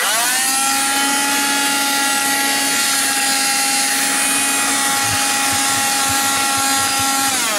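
Handheld Dustbuster vacuum switching on with a quick rising whine, then running steadily with a high motor whine over rushing air as it vacuums debris from a car floor. It starts winding down, its pitch falling, right at the end.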